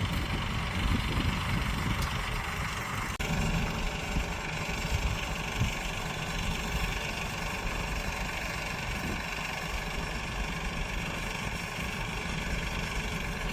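Tractor engine running steadily at a low, even idle, with a sudden break in the sound about three seconds in.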